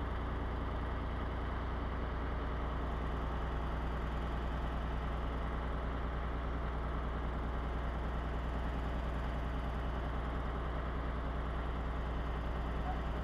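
A steady, low engine-like drone that holds the same pitch and level throughout.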